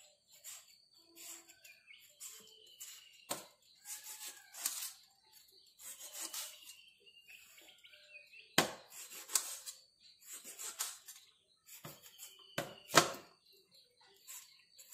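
Knife cutting a peeled cucumber into small pieces over a steel plate: irregular crisp chops and light clicks of the blade, with two sharper knocks about two-thirds through and near the end. A short falling chirp recurs every few seconds behind it.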